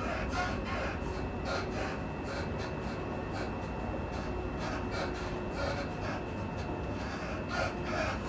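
Interior running noise of a moving electric multiple-unit train: a steady rumble with irregular clatter, and a faint high whine that stops about seven seconds in.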